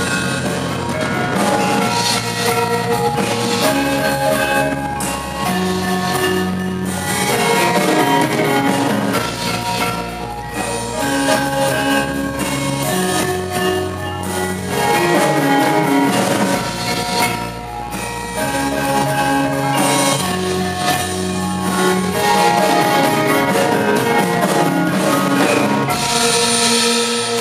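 Gamelan ensemble of bronze gong-chimes and metallophones playing ringing interlocking notes together with a drum kit and an electric bass guitar, in a gamelan–rock fusion piece.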